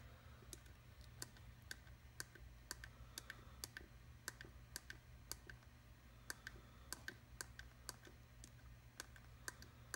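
A small push-button clicked faintly about twenty times at an even pace of roughly two a second, stepping through FPV video channels to find a lost video-transmitter signal. A faint low hum runs underneath.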